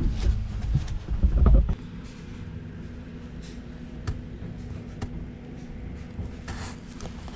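Heavy low thumps and knocks for about a second and a half as a plastic kayak seat is banged on and rocked to test that its fixed mounting holds. After that comes a steady low hum with a few faint clicks.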